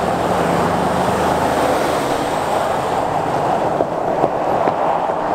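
Loud, steady roar of a Boeing 747 SuperTanker's four jet engines. Under it, an SUV engine can be heard driving past in the first couple of seconds.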